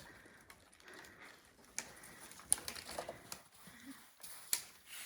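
Faint, irregular soft crunches and clicks of movement through deep snow, with a few sharper ticks about a second and a half, two and a half and three and a half seconds in.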